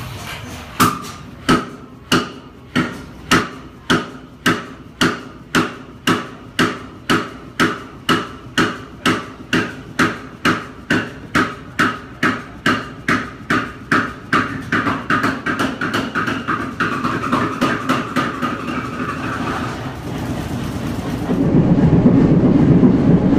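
Large Fairbanks Morse three-cylinder two-stroke diesel engine running slowly, each exhaust pulse a sharp, loud knock, a bit more than one a second, coming gradually closer together as it gains speed. About 21 seconds in, a louder, steadier low engine rumble takes over.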